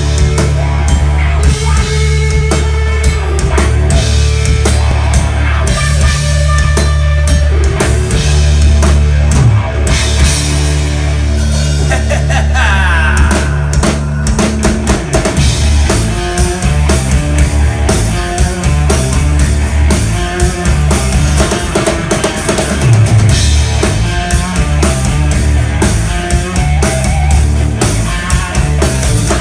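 Live rock band playing an instrumental passage: electric guitar, bass guitar and drum kit together, loud, with a steady beat and a guitar note bent upward about halfway through.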